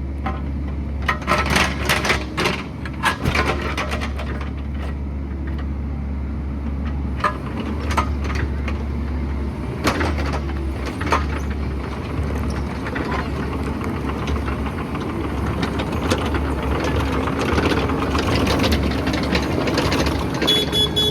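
Excavator engine running steadily under repeated sharp clanks and knocks of metal on rock, the knocks coming in clusters, with a brief high tone near the end.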